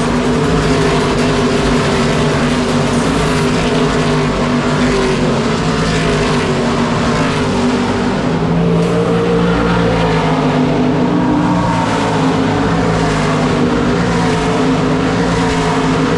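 NASCAR Craftsman Truck Series trucks racing in a pack, several V8 engines running together at high revs in a steady, continuous drone.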